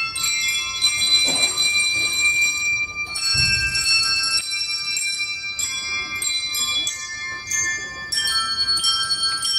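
Handbells playing a tune: notes struck in quick succession, each ringing on and overlapping the next, often several at once.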